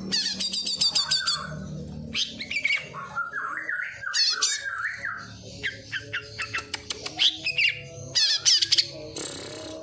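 A mimicking songbird singing a fast, varied medley of sharp chirps, rattling series and warbled phrases, copying sparrow and prinia calls.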